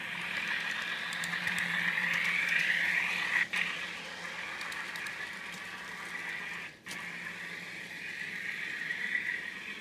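Sound decoder in an N scale VIA Rail FPA-4 model diesel locomotive playing its diesel engine sound through the model's small onboard speaker as the train runs, a steady running sound that cuts out briefly twice.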